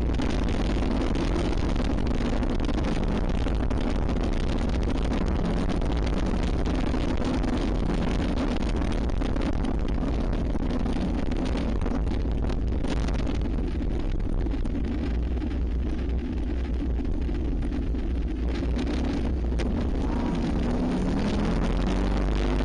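Motorcycle engine running steadily while riding, heard from a camera mounted on the bike, with heavy wind rumble on the microphone.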